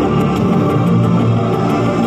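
Music with sustained low notes and a light, steady ticking pulse above them.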